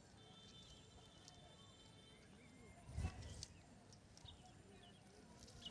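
Near silence: faint outdoor ambience with a few faint high chirps and one soft thump about three seconds in.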